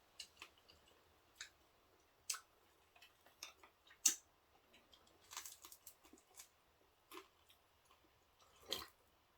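Faint, irregular clicks and short crunches of people eating at a table: chopsticks and utensils tapping, and pieces of wood-fired roast chicken being pulled apart and chewed, the sharpest click about four seconds in.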